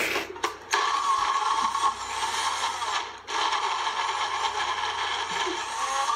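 Countertop blender running at speed with a steady whirring motor, cutting out briefly about three seconds in and then starting again.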